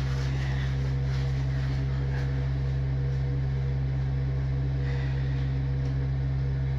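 A motor running steadily at a constant speed, an even low drone that does not rise or fall.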